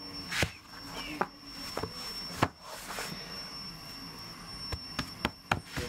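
Floured hands patting and pressing a filled pie dough flat on a table: a series of soft slaps and sharp taps, the loudest about two and a half seconds in. A faint steady high-pitched whine runs underneath.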